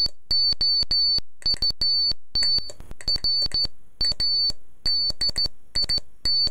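Morse code sent on a straight key: a high-pitched beep keyed on and off in short and long pulses, each with a sharp click as the key closes.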